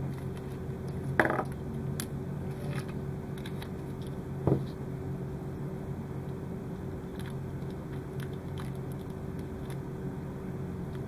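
Small clicks and crinkles of Kapton tape being pulled off and wrapped around a bundle of LED leads by hand, a few separate ticks, the loudest about four and a half seconds in. A steady low hum runs underneath.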